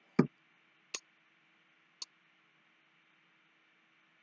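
Metal jewelry being handled: a soft knock just after the start, then two light, high clicks about a second apart.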